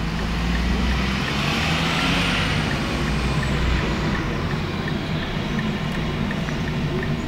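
Rear-loading garbage truck with a Leach packer body running as it moves along the street, a steady low engine rumble. A hissing rush swells and fades about two seconds in.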